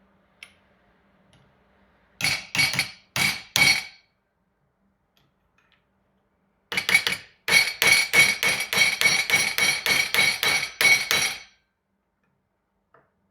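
Hammer blows on metal, driving a tool against the seal head of a rear shock absorber to force it down. There are four ringing strikes, then after a pause a quicker run of about a dozen, roughly three a second.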